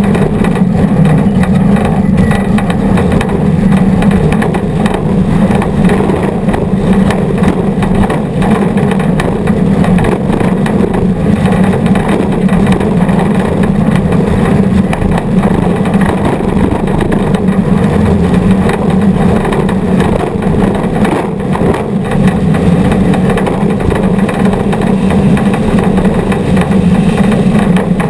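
Off-road race vehicle's engine running hard and steadily at speed, picked up by an onboard camera, with constant wind and ride noise over it.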